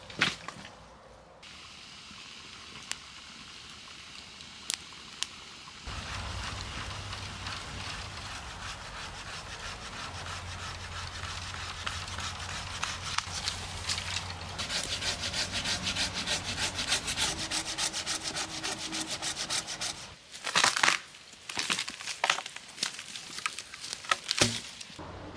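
Hand folding pruning saw cutting through a tree branch: fast, rasping back-and-forth strokes start about six seconds in, with a few louder, harsher strokes near the end.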